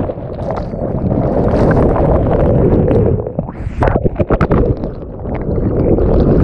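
Muffled, churning rumble of whitewater as a raft plunges through the foot of a waterfall, heard with the microphone in and under the water. A quick run of sharp knocks and splashes comes about four seconds in.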